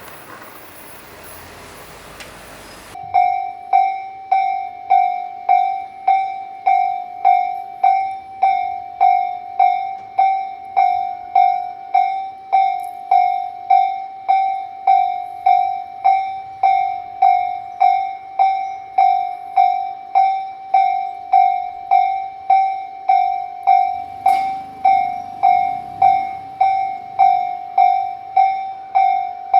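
Japanese railroad crossing warning bell starts about three seconds in and clangs slowly and evenly, about three strikes every two seconds.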